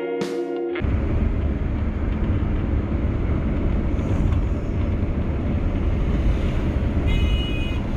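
Guitar music stops about a second in, giving way to a steady low rumble; a short high tone sounds near the end.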